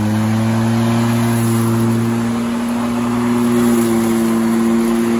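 Greenworks 20-inch 12-amp corded electric lawnmower running at full speed just after spinning up, its motor and blade giving a steady, loud hum and whir as it is pushed into the grass.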